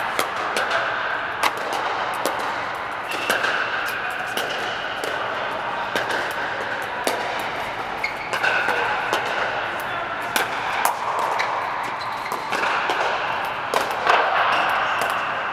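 Pickleball paddles striking plastic balls from several courts at once: irregular sharp pops, the loudest from the nearest rally, over a steady background din inside a large fabric sports dome.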